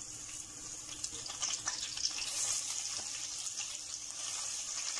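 Crushed garlic sizzling and crackling in hot oil in a pan, with a wooden spatula stirring it. The sizzle gets a little louder from about two seconds in.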